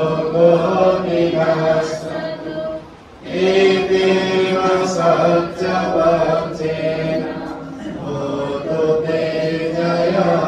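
A group of voices chanting Buddhist paritta verses in Pali in unison, with a short pause for breath about three seconds in.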